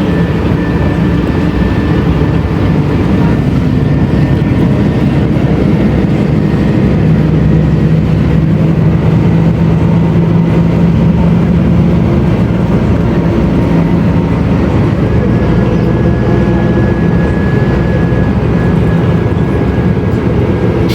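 Mercedes-Benz O500U city bus's diesel engine and ZF automatic gearbox running steadily under way. The engine note swells a little around the middle and then eases, with a faint high whine over it.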